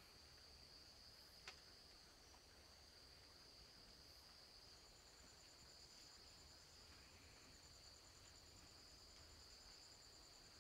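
Faint chorus of Amazon rainforest insects: a steady high buzz, joined about five seconds in by a second insect's fast, even pulsing trill. A single faint click about a second and a half in.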